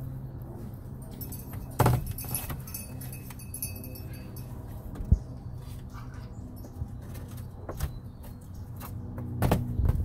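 Galah cockatoo working at a hole in a cardboard box: crinkly scratching and rattling of the cardboard with a few sharp knocks, the loudest about two seconds in and near the end, over a low steady hum.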